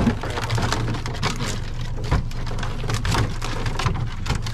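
Live blue swimmer crabs scrabbling against a plastic basket as they are handled, their shells and legs making a dense patter of small clicks and rattles over a steady low hum.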